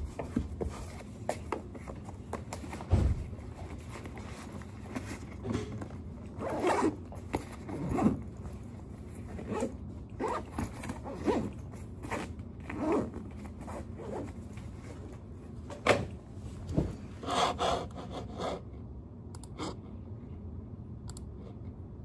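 Zipper on a fabric backpack being pulled in several short strokes, with rustling and a dull knock as things are packed into it.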